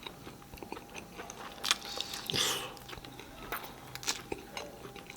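Close-miked eating: a person chewing and biting food, with many short mouth clicks and a longer, louder mouth sound about halfway through.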